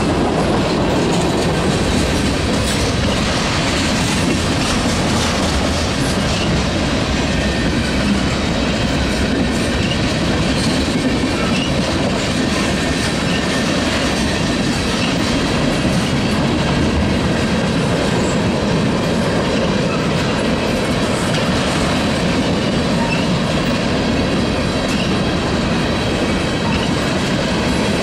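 Freight train cars rolling steadily past, their wheels rumbling and clattering on the rails.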